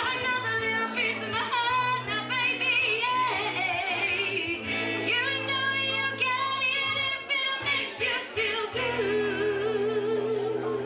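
A woman singing a song with vibrato over an instrumental backing of sustained chords and bass, ending on a long held note.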